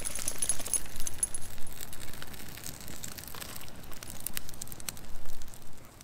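Small wood campfire crackling, with many sharp clicks and pops. A thin high whistle sounds during the first second and a half.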